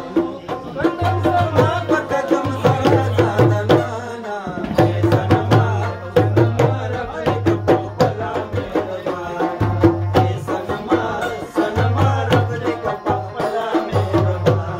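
Live folk music: a barrel hand drum played with the hands keeps up a fast, busy rhythm under a wavering melodic line and a steady low drone. The drone drops out briefly about four seconds in.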